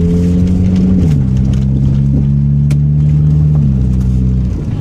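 Car engine running loud under acceleration with its exhaust cut off. The engine note steps down in pitch about a second in and again near the end, as if shifting up, then eases off.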